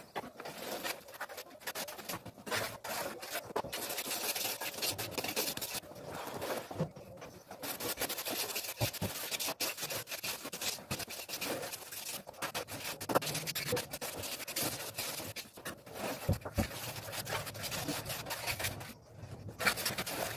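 Hand trowel scraping and rubbing over cement mortar in repeated, irregular strokes, with a few sharp clicks of the blade.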